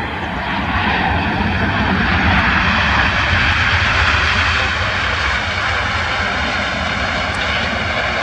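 Boeing 787-8 Dreamliner's GEnx jet engines on the landing rollout as reverse thrust is applied: a loud, broad jet rush that swells over the first few seconds and then holds steady.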